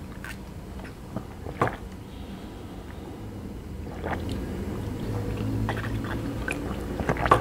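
A man gulping milk from a carton, with swallowing and mouth clicks. He pauses partway through, then drinks again, trying to cool the burn of a very hot chilli chip.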